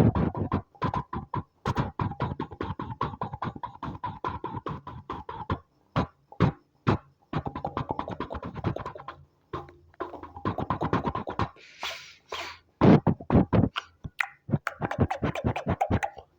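Music track with beatbox-style vocal percussion: quick, clicky beats over a held tone, with a few brief breaks.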